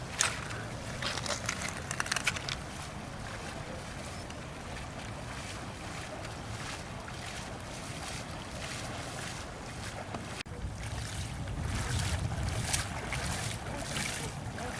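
Steady rush of river water with wind buffeting the microphone; a few crunching clicks in the first couple of seconds, and the low wind rumble grows stronger in the last few seconds.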